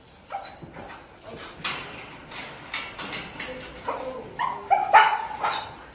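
Dogs whining, yipping and barking, with the loudest barks about four to five seconds in, over a scatter of short knocks and rattles.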